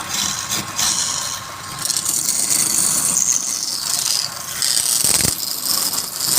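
Wood lathe running while a turning tool cuts the spinning wood, giving a loud hissing scrape that swells and fades with each pass over a faint steady motor hum. A single sharp knock about five seconds in.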